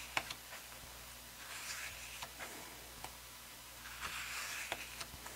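Glossy paper pages of a photobook being turned by hand: soft swishes of paper with a few sharp little ticks.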